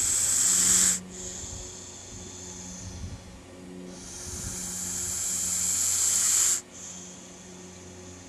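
Pacific gopher snake hissing defensively with forced breaths. A loud hiss stops abruptly about a second in. A fainter hiss follows, then a second long hiss swells over about two and a half seconds and cuts off sharply.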